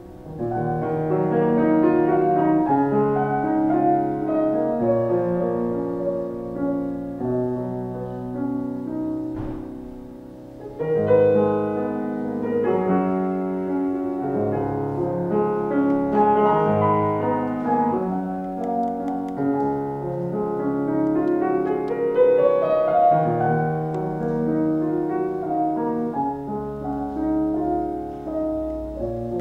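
C. Bechstein grand piano played in a classical style, with flowing chords and melody. The playing softens about nine seconds in, comes back strongly a second or two later, and includes a rising run of notes a little past twenty seconds.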